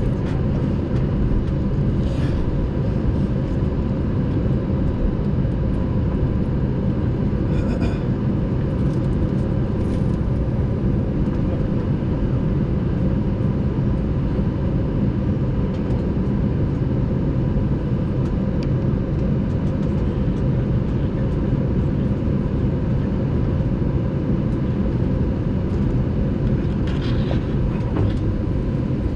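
Steady low rumble and hum inside the cabin of an Airbus A320 with its CFM56 engines running, with a faint steady tone and a few light rattles.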